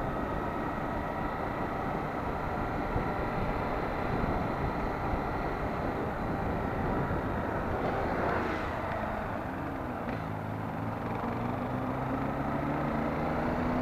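Honda motorcycle riding along at road speed, its engine running under steady wind and road noise. In the last few seconds the engine note rises steadily as the bike speeds up.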